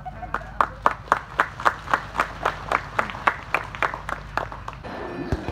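Hand clapping in a steady rhythm close by, about four claps a second, over faint crowd applause, dying away after about four seconds. A single bang near the end.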